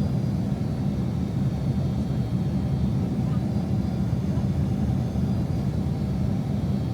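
Steady low rumble of a Boeing 767-300's engines and airflow heard inside the passenger cabin, even and unchanging throughout.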